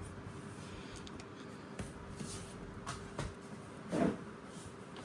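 Small handling sounds on a workbench: a few faint clicks and a soft thump about four seconds in, over a steady low hum.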